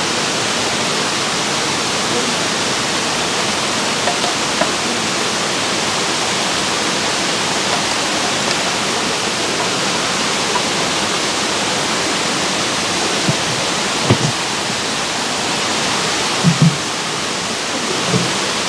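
Steady rush of flowing water from a river or waterfall, with a few brief low thumps near the end.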